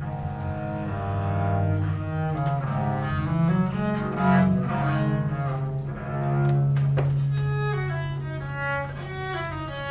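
Viola da gamba played with a bow: a slow melody moving over long held low notes.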